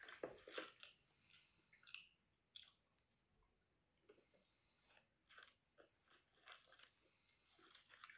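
Faint chewing of crispy fried chicken topped as a pizza, a scatter of short crunches with quiet gaps between, the loudest in the first second.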